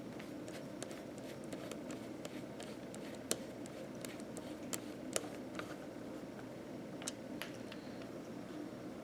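Small screwdriver work on a laptop: light scattered clicks and ticks of tiny screws and a driver tip on metal and plastic, with a few sharper clicks. A steady low hum runs underneath.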